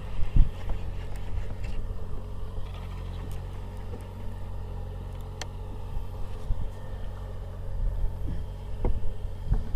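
Fishing boat's engine running with a steady low hum. A few short knocks sound over it, the loudest about half a second in.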